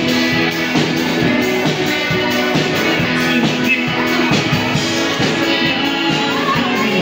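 A live band playing a rock-style song with a singer over the instruments, at a steady loud level with no break.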